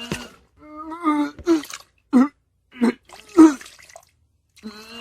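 A person retching and vomiting: a run of wet, voiced gags and heaves separated by short pauses. The loudest heave comes about three and a half seconds in.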